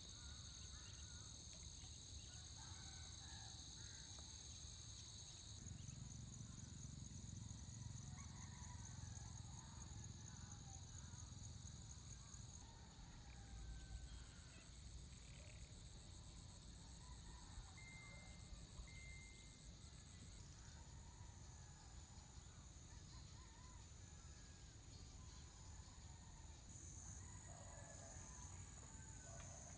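Insects trilling in a faint, steady high-pitched chorus, several voices overlapping and swelling and easing every few seconds, over a low rumble.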